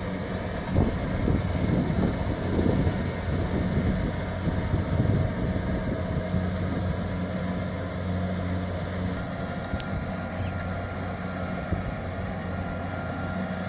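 Kubota DC-70 Plus combine harvester's diesel engine running with a steady hum, with rougher, uneven rattling over the first few seconds.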